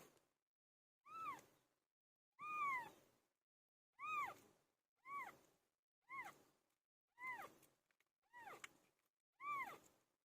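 A cat meowing over and over, about one short meow a second, each call rising and then falling in pitch.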